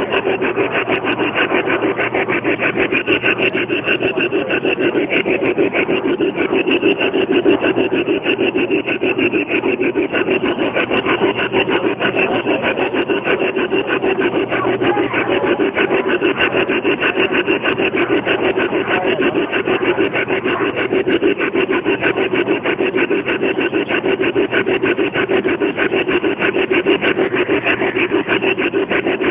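G-gauge garden railway train running along the track, heard from a camera riding on it: a loud, steady, fast rasping clatter from its wheels and drive.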